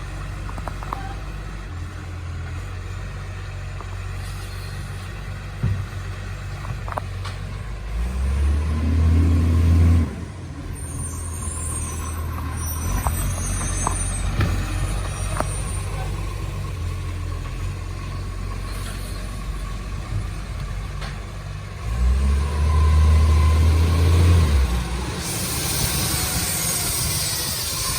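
Diesel engine of a side-loader garbage truck with a leaking exhaust running steadily, revving up twice for a couple of seconds each as the bin-lifting arm works. A broad hiss comes in near the end, typical of an air brake releasing.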